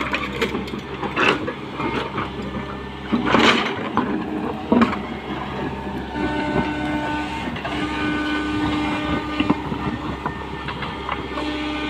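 Tata Hitachi 120H excavator running under load, its diesel engine and hydraulics keeping up a steady pitched whine that swells and drops, with a few sharp clanks in the first five seconds.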